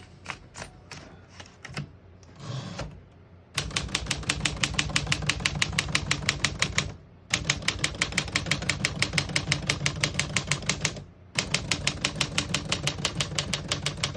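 1949 Smith-Corona Silent portable typewriter being typed on: a few scattered light clicks, then about four seconds in a fast, even run of keystrokes that breaks off briefly twice.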